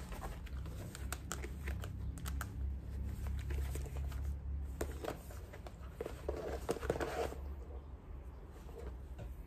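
Handling noises of packing a small bag: rustling, soft clicks and taps as a wallet and a small plastic bottle are handled and put in, over a low steady hum.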